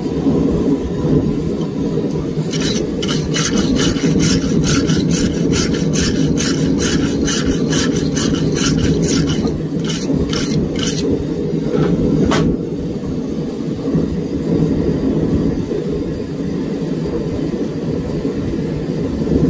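A heavy-duty wire brush scrubs scale off red-hot steel on the anvil in quick strokes, about three a second for some eight seconds, cleaning the surfaces before flux for a forge weld. A single knock follows a second or so later. Under it all runs the steady low rushing of the propane forge burner.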